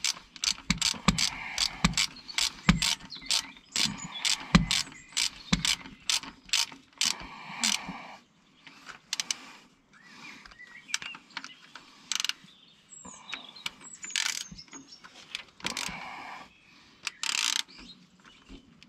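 Socket ratchet wrench clicking as the flanged nut is run down onto the battery cable terminal of a tractor starter motor. The clicks come in quick repeated strokes for the first half, then turn sparser, with scattered clatter.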